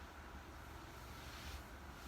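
Faint steady low hum and hiss of room background noise, with a faint brief rustle about one and a half seconds in.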